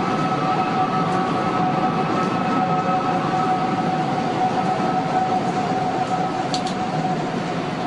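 Two-toned whistling cry put down to wind blowing across the almost-finished One World Trade Center tower: two steady held tones over a rushing noise, the higher tone fading out about six seconds in. It is eerie and moaning.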